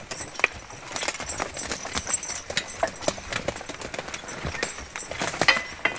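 Footsteps moving through woodland undergrowth, with irregular cracks and snaps of twigs and brush underfoot.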